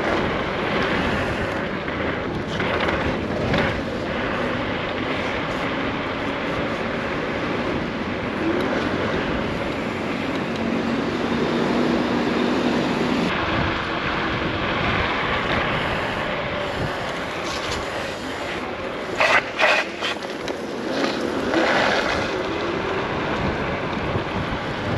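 Steady rush of wind and road noise on the microphone of a rider on a Nami Klima electric scooter, with a few short knocks near the end.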